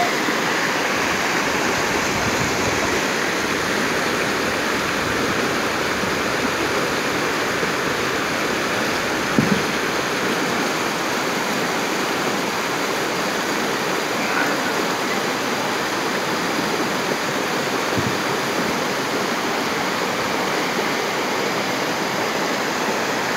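Shallow rocky river rushing steadily over boulders in small white-water rapids, with a brief knock about nine seconds in.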